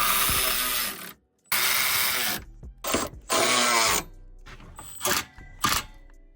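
Power tool running the subframe brace bolts in: three long bursts and a short one, its pitch shifting under load, then two short sharp clicks.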